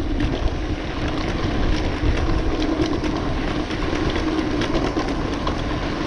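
Wind rushing over the microphone and a road bike's tyres rolling over a cracked concrete-slab road while riding downhill, a steady rumbling noise with scattered light clicks and knocks.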